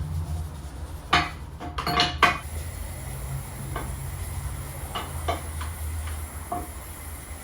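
Metal parts clanking and clinking as brake calipers are handled: two loud clanks about a second and two seconds in, then a few lighter clinks, over a steady low hum.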